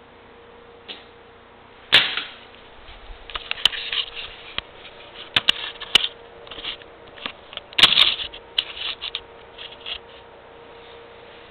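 Lego train rattling and clicking as it jerks back and forth on its track to balance an inverted pendulum under PID control, with sharp knocks about two seconds in and again near eight seconds, over a faint steady hum.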